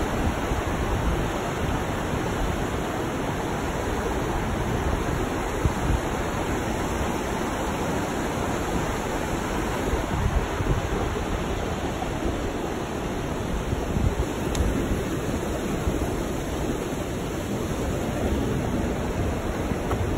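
River rapids: whitewater rushing over rocks and shallow ledges, a steady, even rushing noise.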